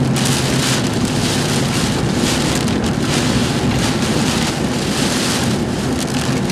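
Heavy rain and strong storm wind close to a tornado, loud and steady, with the wind surging in gusts over a low steady hum.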